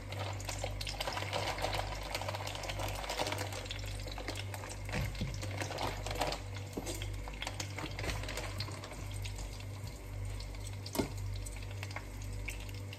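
Hot oil sizzling in a frying pan as chicken nuggets fry, with many small crackling pops, over a steady low hum.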